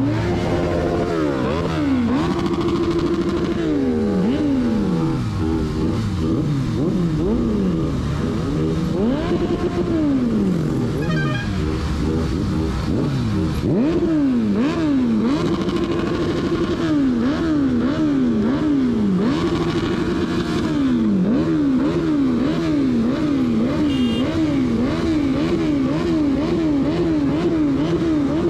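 Motorcycle engine being revved over and over, its pitch climbing and falling in long sweeps, then in quick repeated blips that each reach the same top pitch and drop back.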